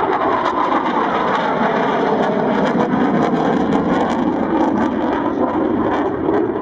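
Saab J35J Draken's Volvo RM6C afterburning turbojet heard in a display pass: a loud, continuous jet rumble whose pitch drops a little partway through.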